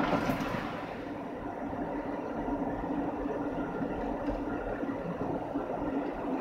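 Steady engine and tyre road noise heard from inside a car driving on wet asphalt, with a low steady hum. There is a short burst of hiss at the very start.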